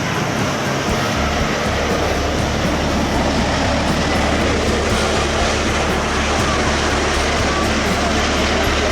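Loud, steady jet roar of an Airbus A380 landing in strong, gusty crosswind, with the low notes of background music underneath.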